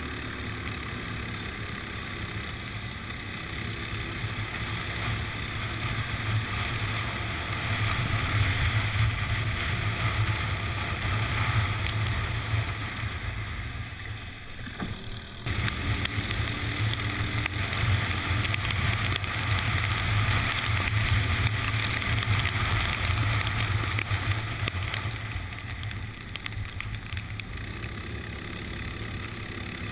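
Go-kart engine running at racing speed, heard from on board, over a steady hiss of wind and tyre spray from the wet track. About halfway it eases off briefly, then picks up again suddenly.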